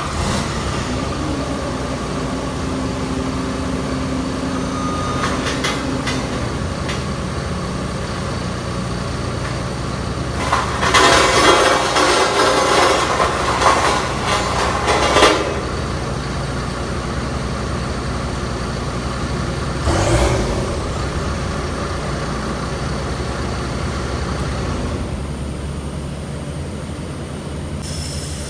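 An engine running steadily, with a loud spell of welding-arc crackle for about five seconds in the middle and a shorter burst of it later.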